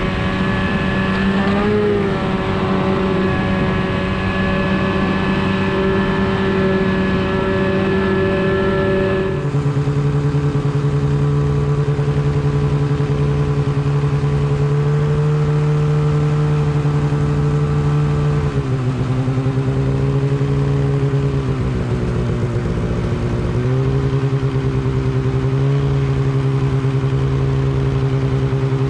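Snowmobile engine running at a steady speed under way, its pitch changing suddenly about nine seconds in, then dipping and rising again a few times as the throttle is eased and reopened.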